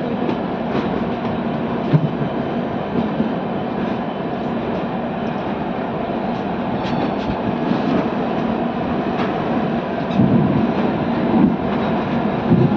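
Shatabdi Express train running on the track: a steady rumble of wheels on rails with scattered short clicks, and a few louder low thumps about ten seconds in.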